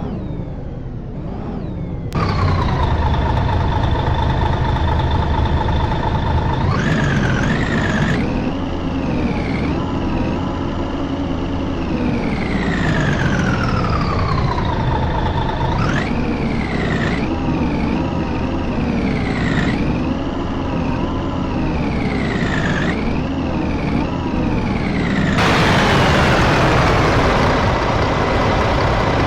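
Mercedes-Benz OM-457 six-cylinder turbo diesel of an O500UA articulated bus running loud, with a whine over the engine rumble that slides slowly down in pitch and jumps sharply back up several times. About 25 seconds in, a strong hiss rises over the engine.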